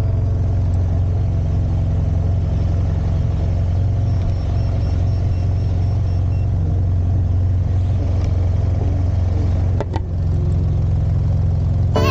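SYM Maxsym TL500 maxi-scooter's parallel-twin engine idling steadily, with a brief knock near the end.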